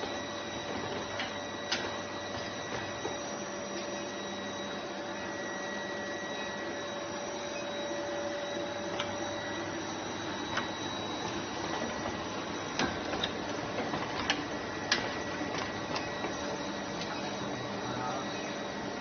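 Fully automatic brazing machine for diamond saw blade segments running: a steady mechanical noise with several constant whining tones, broken by scattered sharp clicks.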